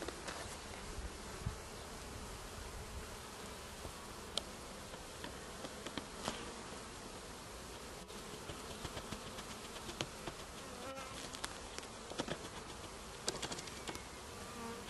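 Honeybees buzzing at a hive entrance: a steady hum of many bees flying in and out close by, with a few short sharp ticks scattered through it.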